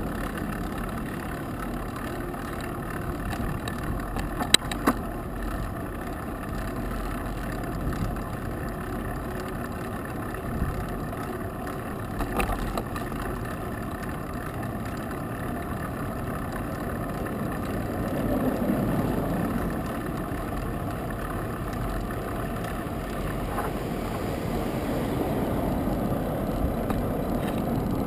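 Steady rumble of wind and road noise from a bicycle moving along a paved street, with a couple of sharp knocks about five seconds in and another near the middle. Partway through, a broad swell of low noise rises and falls.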